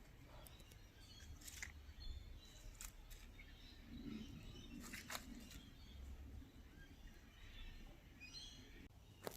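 Faint birdsong in bushland: scattered high chirps, with a short run of quick chirps near the end. A few sharp clicks and a low rumble sit underneath.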